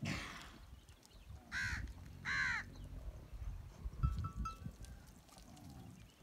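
Two short calls, each rising then falling in pitch, about a second and a half in and again under a second later, over a low rumble. A low thump comes about four seconds in.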